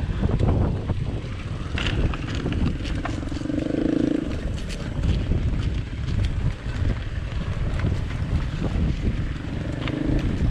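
Wind buffeting the camera microphone while riding a bicycle on the road: a loud, unsteady low rumble, with a brief humming tone about four seconds in and again near the end.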